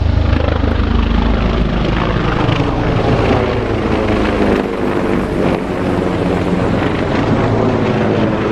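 MH-53E Sea Dragon heavy helicopter flying low overhead: a loud, deep rotor beat under a steady engine whine. The deepest part of the beat drops away about halfway through as it passes.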